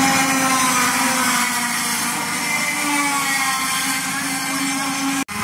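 Racing go-kart engine running at high revs as the kart goes by, its pitch sliding slowly down; the sound drops out for an instant near the end.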